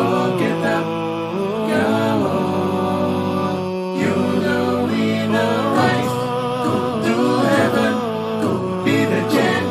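Music: a wordless sung melody, like chanting, over a steady low held drone.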